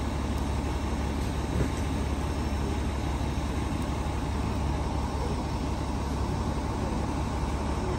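Fire engine's diesel engine idling with a steady low rumble.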